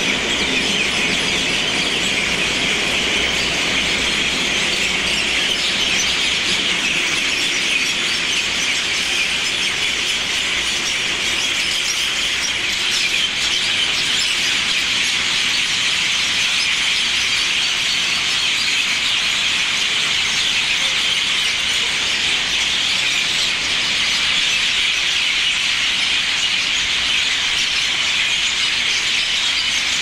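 Many birds calling at once from dense palm trees, a steady, high-pitched chattering din that does not let up.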